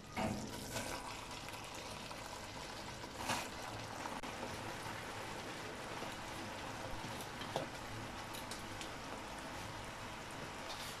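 Thick sugar syrup (chashni) bubbling steadily in a karahi on a low flame while par-boiled rice is tipped in on top, with a few soft knocks of utensils against the pan.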